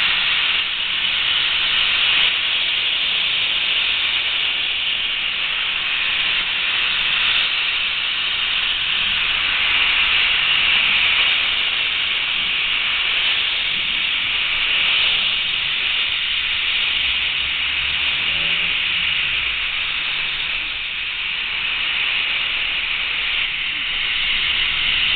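Steam locomotives starting a train, giving off a loud, steady hiss of escaping steam. The white steam billowing at track level points to open cylinder drain cocks.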